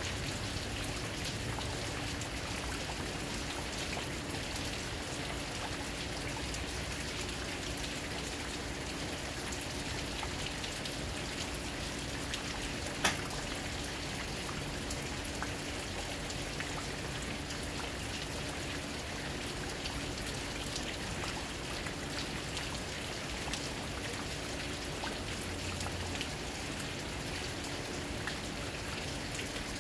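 Steady rain falling, an even patter of drops on surfaces, with a faint steady low hum underneath. A single sharp tick stands out about halfway through.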